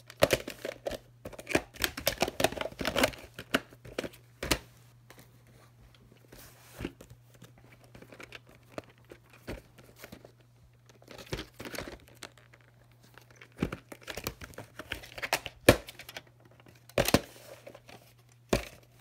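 A VHS cassette and plastic clamshell cases being handled: a quick flurry of clicks, rattles and rustling for the first few seconds, then scattered clicks and knocks, with a few sharper clacks near the end. A faint steady low hum runs underneath.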